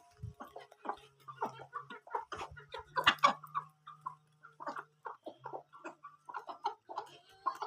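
Chickens clucking, many short calls coming in quick, irregular succession.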